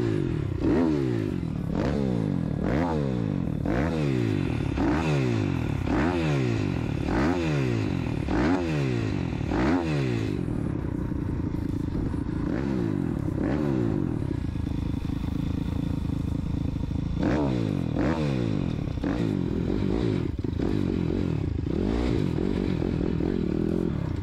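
140 cc four-stroke pit bike engine running through a Scalvini racing exhaust under way, revs climbing and dropping about once a second, settling steadier for several seconds midway, then rising and falling again near the end.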